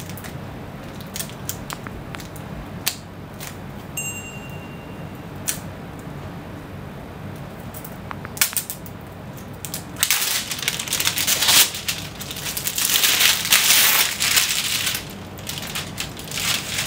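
Plastic protective film being pulled and torn off the face of a cricket bat. Scattered small clicks and rustles come first; about ten seconds in, loud crinkling and crackling of the plastic lasts several seconds.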